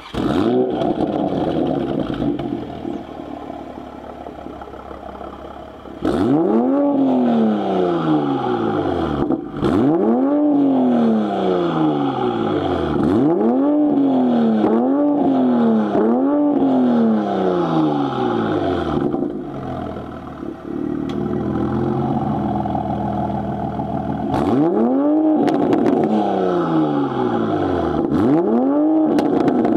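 Toyota GR Supra (A90) exhaust, fitted with an AWE Resonated Touring Edition system and an aftermarket downpipe. The engine is loud at first, then settles to a quieter idle for a few seconds. It is then revved in quick blips, each rising sharply and falling back, several in a row, then a steadier spell and two more blips near the end.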